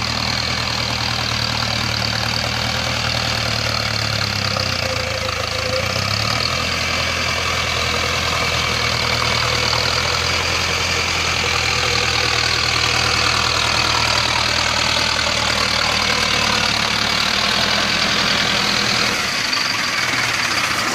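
Mahindra Arjun Novo 605 DI tractor's diesel engine running steadily under load while driving a Shaktiman rotavator puddling a flooded paddy field. The engine note dips briefly about five seconds in, then steadies again.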